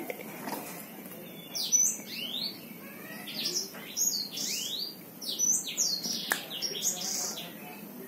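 Caged songbird calling: clusters of quick, high chirps and whistled slurs, some rising and some falling in pitch, coming every second or so from about two seconds in.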